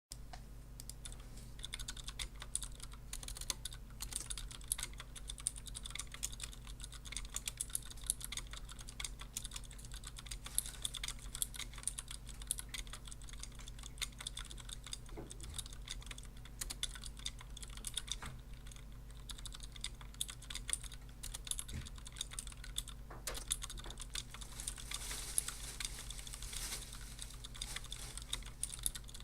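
Continuous fast typing on a KBP V60 mechanical keyboard fitted with clicky Cherry MX White switches and Cherry-profile dye-sub keycaps, in a Tex case. The key clicks run in a rapid, uneven patter over a faint steady low hum.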